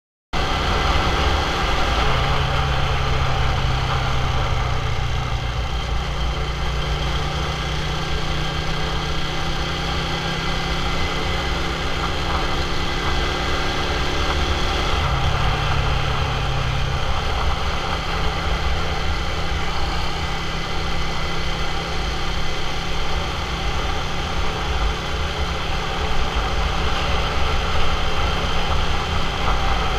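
Motorcycle engine running as the bike rides along, with heavy wind rumble on the microphone. The sound cuts in sharply just after the start, and the engine note steps up and down a few times.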